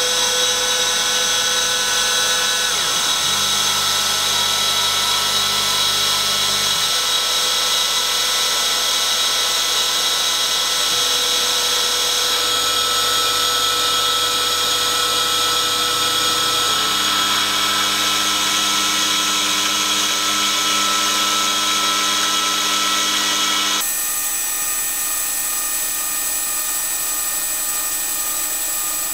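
DIY-converted CNC milling machine running a 2 mm carbide end mill at about 6,000 rpm, cutting a profile in a metal plate. Under the spindle's steady whine, low hums step to new pitches every few seconds as the table moves. About 24 seconds in, the sound changes abruptly and drops a little in level.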